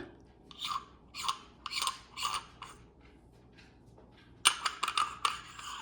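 Machined billet-aluminium fuel cap being twisted on the threads of its filler ring, metal scraping on metal. A run of short scrapes about twice a second, then after a pause a quicker cluster of sharper clicks and scrapes near the end.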